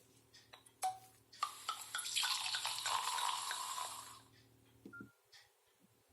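Nokia mobile phone playing a short, hissy, water-like ringtone from its small speaker for about three seconds. Several key clicks with short beeps come before it, and one more beep follows, as the ringtone list is scrolled.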